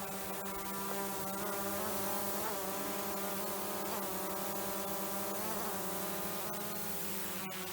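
Quadcopter drone hovering, its propellers giving a steady buzz with several pitched tones whose pitch wavers briefly every second or so as the motors adjust.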